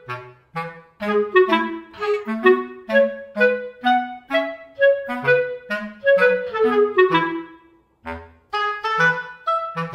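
Background music: a melody of short, even notes over a bass line, with a short break about eight seconds in.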